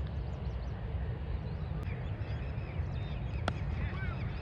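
A single sharp crack of a cricket bat striking the ball about three and a half seconds in, over a steady low rumble, with birds chirping in the second half.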